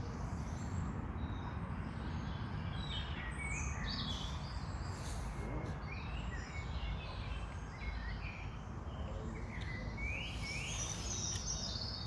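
Small birds chirping and singing, many short high chirps and trills, over a steady low rumble.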